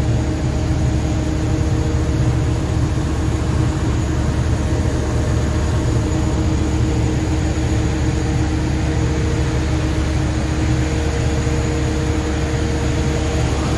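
Steady engine and road noise inside a moving vehicle: a constant low rumble with a few faint steady hums over it.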